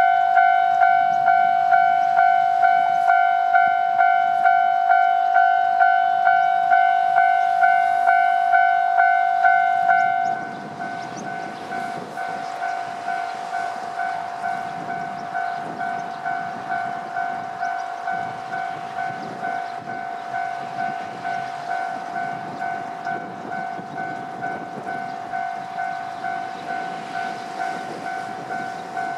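Japanese railway level crossing's electronic warning bell clanging at about two strokes a second. About ten seconds in, the bell drops in volume and keeps ringing while a train rumbles through the crossing.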